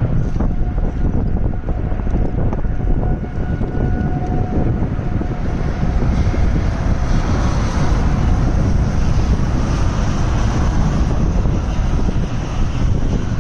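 Tornado wind rushing loudly and buffeting the microphone in a continuous low rumble, growing fuller and hissier about halfway through.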